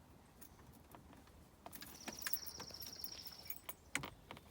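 Keys jingling and clicking in an old Chevy truck's ignition lock as the key is worked at, stuck and not coming out. A short jingle runs in the middle, with a sharper click near the end.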